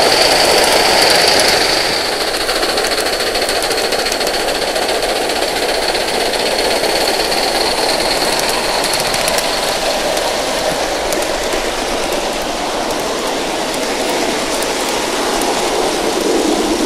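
Live-steam model steam locomotive (Aster) running past, its exhaust chuffing with a steady high-pitched hiss that fades out after about ten seconds. Near the end the coaches it hauls follow, their wheels clicking over the rail joints.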